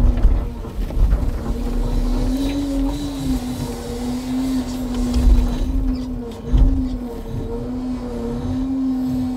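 Timber truck's diesel engine running steadily, its pitch wavering slightly up and down, with several heavy low thumps, the loudest about five and six and a half seconds in.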